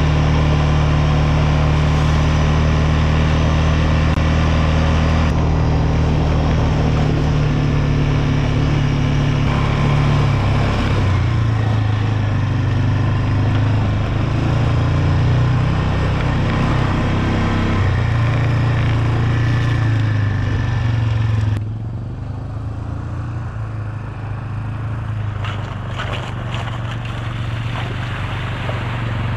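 ATV engine running under way, its pitch rising and falling with the throttle. About 21 seconds in the sound drops suddenly and carries on more quietly.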